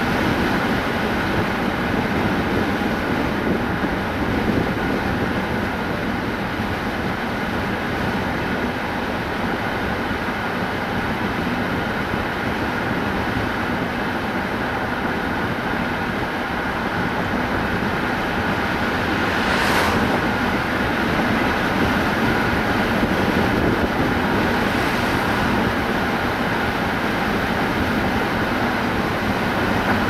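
A car driving along, with steady road and tyre noise and engine hum. A brief hiss cuts through about two-thirds of the way in.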